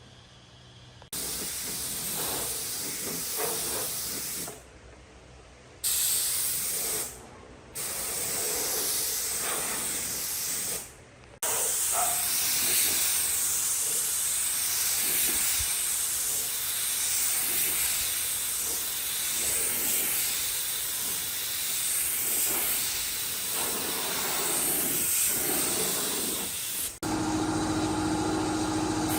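Compressed air hissing from a hand-held air tool, switched on and off in several bursts, the last lasting about fifteen seconds. Near the end the hiss stops and a steady hum begins.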